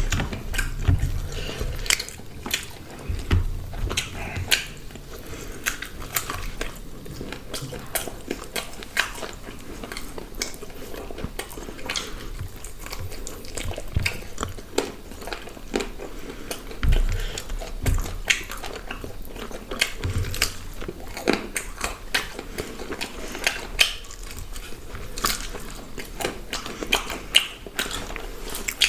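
Close-up chewing and biting of grilled chicken and paratha, with many irregular, quick mouth clicks and smacks and an occasional low thump.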